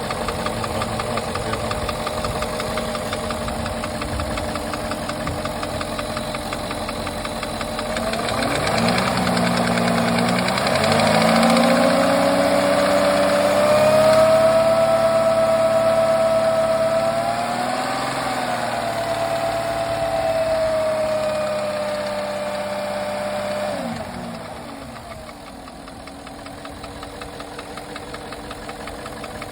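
Porsche Cayenne 955's 4.5 V8 (M48.00) engine running with a rapid knocking. About eight seconds in it is revved and held at raised speed, then drops back to a quieter idle near the end.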